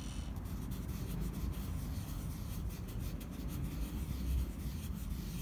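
Scratchy rubbing strokes on drawing paper as coloured-pencil layers are blended, over a low rumble.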